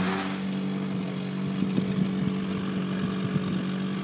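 An engine idling steadily with a constant, unchanging hum, with a few faint clicks over it.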